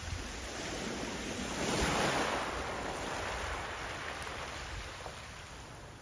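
Small wave from calm sea water washing up onto a pebble-and-gravel shore, swelling to its loudest about two seconds in and then fading as it draws back.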